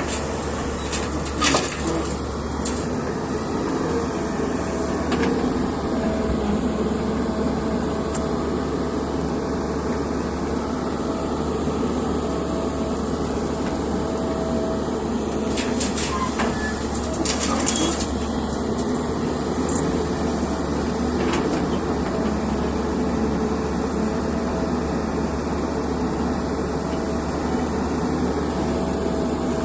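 Excavator engine running steadily under work, with a few sharp knocks about a second and a half in and again around the middle.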